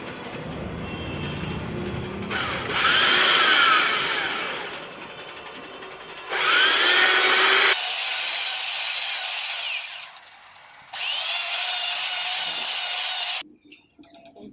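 Power tool spinning fine sandpaper inside a motorcycle cylinder bore to polish the freshly bored wall. It runs in several bursts, its pitch rising and falling as it speeds up and slows, and cuts off suddenly near the end.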